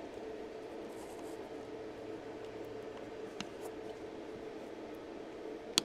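Quiet handling of a small plastic transistor tester over a faint steady hum: a light click about three and a half seconds in and a sharper click near the end, as a transistor is swapped in the lever socket and the test is started.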